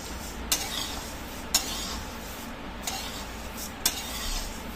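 Metal spatula stirring whole spices dry-roasting in a metal kadhai: the seeds rustle and scrape against the pan, and the spatula clinks sharply against the pan four times, about a second apart.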